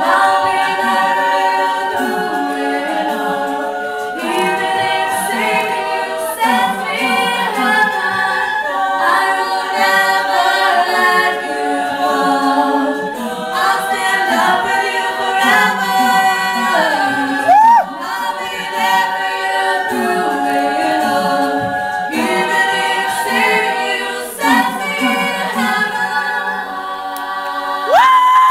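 All-female a cappella group singing: a lead voice over sustained vocal harmonies from the backing singers. Near the end the lead slides up into a held high note.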